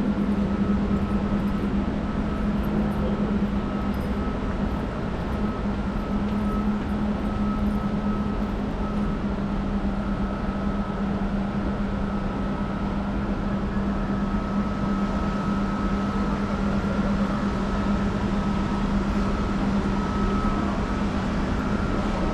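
Steady mechanical drone with a constant low hum and a fainter high whine over a noisy background.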